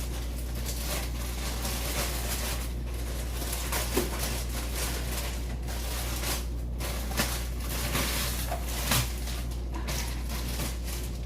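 A steady low hum with a handful of light knocks spread through it, typical of kitchen handling noise as frozen vegetables are added to a crock pot.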